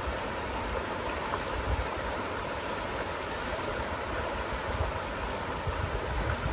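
Fast, rock-lined Merced River rushing steadily, with occasional low bumps on the microphone.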